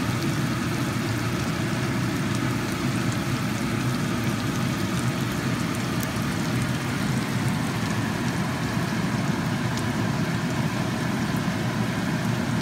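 Chicken pieces in a thick soy and chilli sauce simmering in a wok, the sauce bubbling and sizzling steadily with many small pops. A steady low rumble runs underneath.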